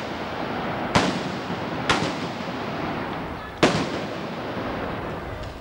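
Black-powder blunderbuss (trabuc) shots fired in a Moors and Christians siege: three sharp bangs, the first two about a second apart and the third nearly two seconds later, each with a short echo, over steady background noise.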